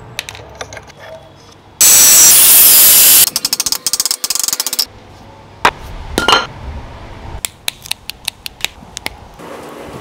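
Metal parts and tools from a dismantled fridge compressor clinking and clicking, broken by a loud rushing noise about two seconds in that lasts about a second and a half, followed by a quick run of clicks and then scattered sharp taps.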